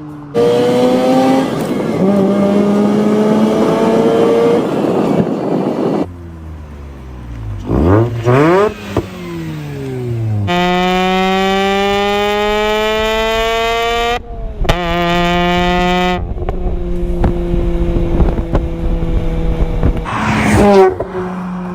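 Mazda RX-8's 1.3-litre twin-rotor Wankel rotary engine revving hard in several pulls, its pitch climbing steadily as it accelerates, with abrupt cuts between pulls. In the middle the revs drop and climb again; later it runs steadier and lower, with a quick rev blip near the end.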